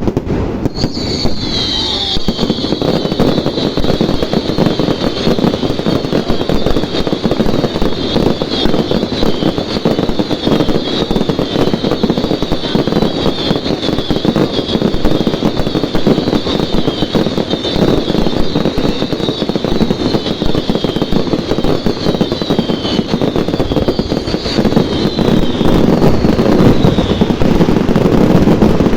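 Fireworks display: dense, rapid crackling and popping, with many high whistling fireworks overlapping from about a second in until shortly before the end. It grows louder near the end.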